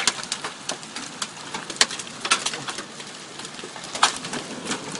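Mothball-sized hailstones pelting cars and the ground: a dense, irregular patter of sharp ticks and cracks over a steady hiss, with a few harder hits standing out.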